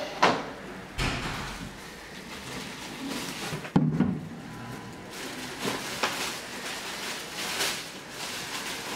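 Plastic knocks and clatters from a white swing-lid waste bin as its lid is taken off and set down and the bin is handled, with the rustle of a plastic bin liner being pulled out. The loudest knock comes about four seconds in.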